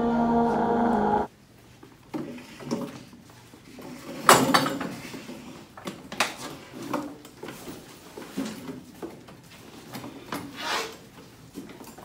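A steady droning tone cuts off suddenly about a second in. After it comes low room sound with scattered short knocks and rustles of students handling papers and furniture at a classroom table, the loudest about four seconds in.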